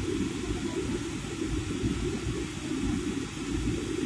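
Steady cabin noise of an airliner in flight: a low drone of engines and rushing air with a fainter hiss over it.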